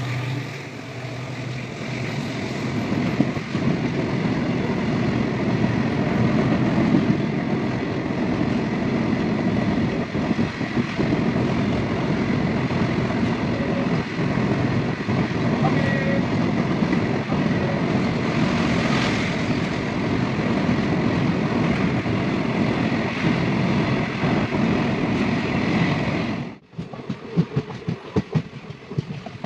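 A train running along the track with a steady rumble and rush of wheel and rail noise. About 26 seconds in it cuts off abruptly, and a quieter passage of wheels clicking over rail joints follows.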